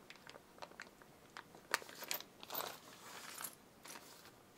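Small carbide end mills faintly clicking together as they are slid into a zip-lock plastic bag, with light crinkling of the bag as it is folded.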